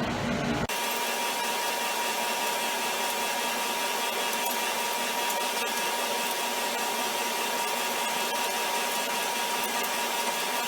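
Hot-water heating boiler running: a steady rushing hiss with a steady high whine. It comes in abruptly about a second in.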